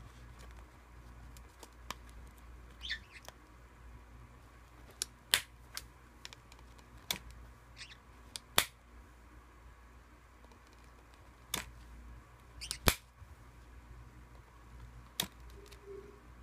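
Metal kiss-lock clasp of a coin purse snapping open and shut: about six sharp clicks at uneven intervals. A few short high chirps from a white-bellied caique fall in between.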